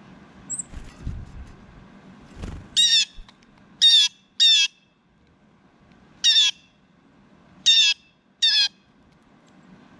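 Blue jay calling: six short calls, each falling slightly in pitch, in two sets of three, starting about three seconds in. A couple of low thumps come before the first call.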